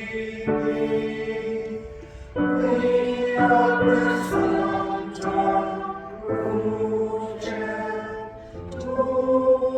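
Church choir singing a slow hymn in several parts, with long held chords that change every second or so.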